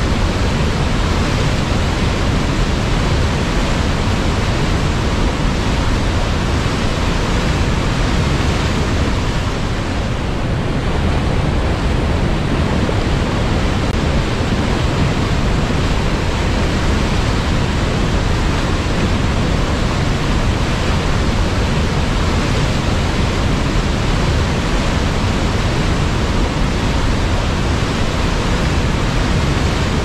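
Fast mountain river rushing over boulders and rapids: loud, steady whitewater noise.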